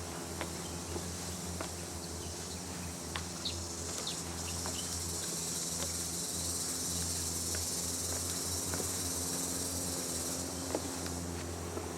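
A high, steady shrilling insect chorus in tropical forest, growing louder about four seconds in and cutting off abruptly about ten seconds in. A low steady hum and scattered faint clicks run underneath.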